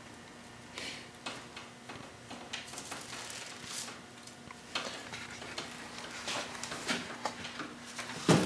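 Dry broomcorn stems rustling and crackling as they are plaited by hand around a broom handle, with scattered small clicks and a louder knock near the end, over a faint steady hum.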